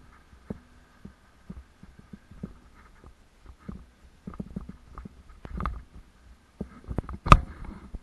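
Salsa Timberjack mountain bike jolting over a dirt trail: irregular knocks and rattles from the bike as it rides over bumps, with one sharp, much louder bang a little after seven seconds.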